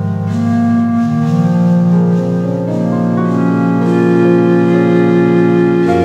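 Ambient keyboard-synthesizer music: sustained chords, with held notes entering one after another so the chord builds up and climbs in steps.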